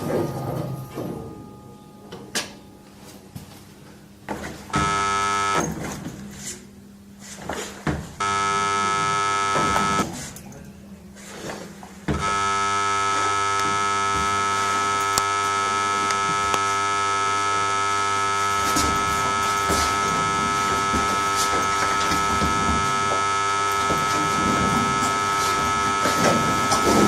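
Steady electronic buzzer tone with a hard, many-toned timbre. It sounds briefly about five seconds in, again for about two seconds near eight seconds, then holds unbroken from about twelve seconds on.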